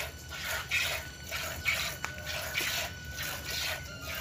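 Cow being milked by hand: streams of milk squirting from the teats into a plastic bucket in a steady rhythm, about two squirts a second.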